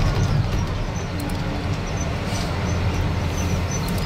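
Amusement-park monorail car running along its track, a steady low rumble heard from on board, with a faint steady hum through the middle.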